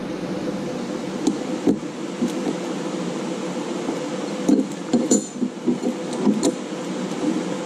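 Steady mechanical hum, with a few sharp metallic clinks as steel plates are handled and set down on a steel welding table.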